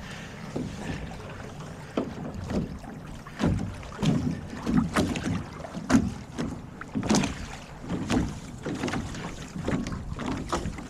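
Wind rumbling on the microphone, with irregular splashes and knocks as a small sailboat is pushed free through shallow water.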